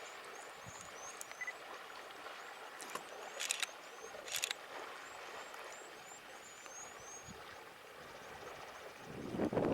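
Quiet bush ambience with a rapid series of short, high chirps, two or three a second, that stop a couple of seconds before the end; two brief rustles come in the middle.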